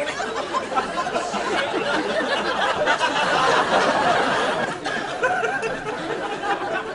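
Audience laughing: a dense, continuous wash of laughter that eases off a little toward the end.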